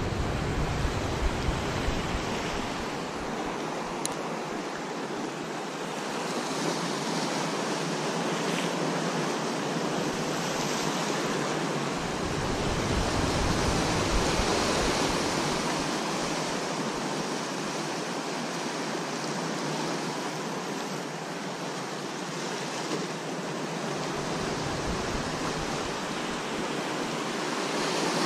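Sea surf breaking and washing against shore rocks, a steady rush that swells and ebbs slowly.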